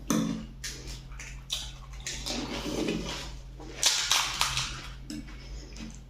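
Pani puri being eaten quickly: crisp puris crunching and the spiced water being slurped, in irregular bursts with a few sharp crunches.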